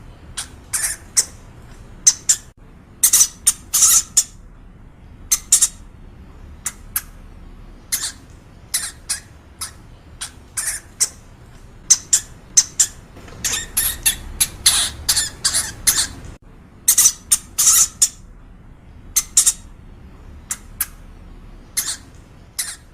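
Hamster squeaking: many short, high-pitched squeaks in irregular clusters, thickest a little past halfway, with short pauses between bursts.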